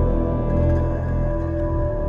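Ambient background music: slow, steady held tones over a deep low drone.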